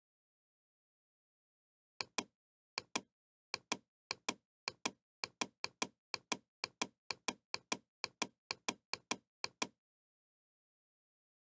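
Computer mouse clicking over and over on a scrollbar arrow: about fifteen sharp double clicks, press then release, roughly two a second, starting about two seconds in and stopping shortly before the end.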